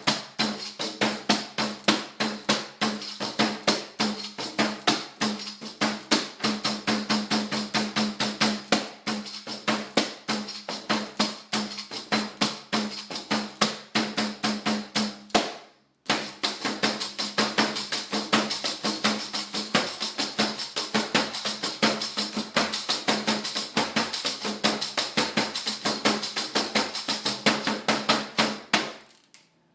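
Pandeiro, a Brazilian frame drum with jingles, built from recycled materials, played in a fast, even rhythm of head strokes and jingle shakes over a ringing drum tone. The playing breaks off briefly about halfway through, then resumes and stops near the end.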